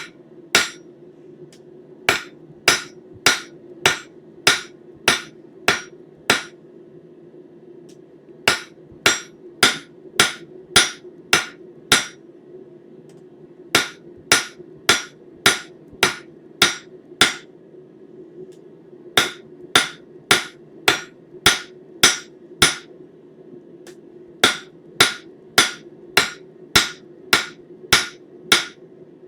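Hand hammer striking hot 1/4-inch square steel bar stock on the flat face of an anvil to straighten a tapered end, with sharp ringing blows about two a second. The blows come in runs of several strikes, with short pauses between them. A steady low hum runs underneath.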